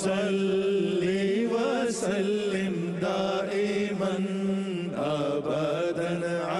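Background music: a chanted vocal melody that wavers and bends over a steady held drone.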